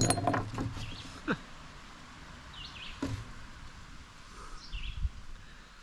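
A few sharp knocks and clatter in the first second or so, then a small bird chirping a few short calls over a quiet outdoor background.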